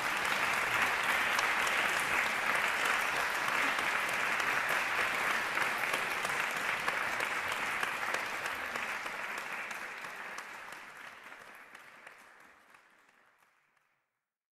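Audience applause, a dense patter of many hands clapping, which fades away over the last few seconds.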